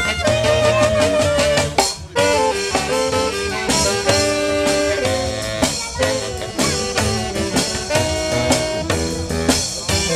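Live band playing jazzy music: saxophones and other brass carry the melody over drums, with a brief break about two seconds in.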